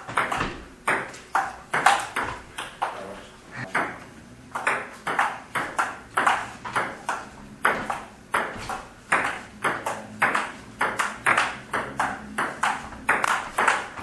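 Table tennis rally: the ball clicking in quick alternation off rubber-faced paddles and the table top, about two to three hits a second, with a short lull about four seconds in.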